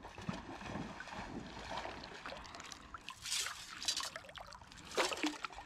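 Lake water sloshing and trickling in irregular splashes as a digging sieve is rinsed in the shallows; the loudest splash comes about five seconds in.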